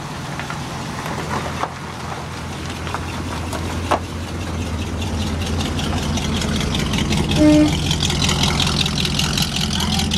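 1957 Chevrolet wagon's engine idling through its exhaust: a steady low rumble that grows louder as the tailpipes come closer. A brief tone sounds about seven and a half seconds in.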